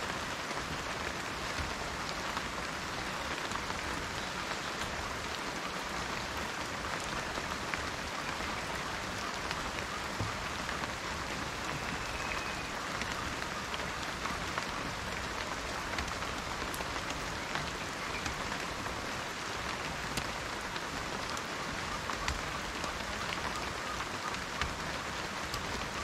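Steady rain falling on forest foliage, an even hiss with scattered individual drops ticking.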